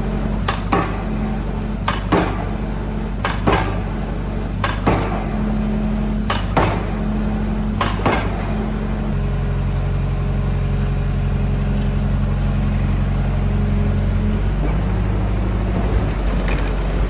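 Excavator's diesel engine running, with a sharp metallic clank about every second and a half for the first eight seconds. About nine seconds in, the engine note shifts and holds steady, then changes back near the end.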